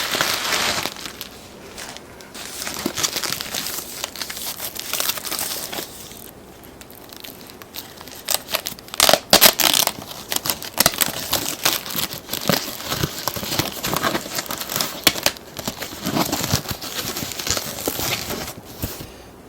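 Packaging crinkling and rustling as an alarm clock is unwrapped and lifted out of its box, with scattered sharp clicks and a louder burst of handling about nine seconds in. It stops near the end.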